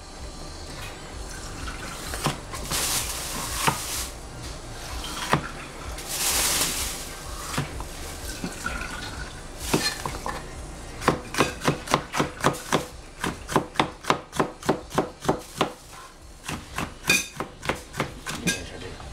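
Chinese cleaver chopping a yellow bell pepper on a plastic cutting board: a quick, even run of knocks, about four a second, starting about eleven seconds in and going on for several seconds, with a few more chops near the end. Earlier come a few short rushes of noise.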